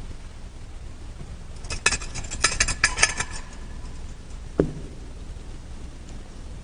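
Metal and glass communion vessels clinking against each other as they are cleaned at the altar after communion: a quick run of sharp clinks lasting about two seconds, then a single knock a moment later, over a steady low room hiss.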